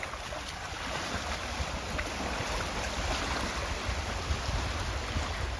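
Steady rain falling through the trees, an even hiss with faint drip ticks, and low wind rumble on the microphone.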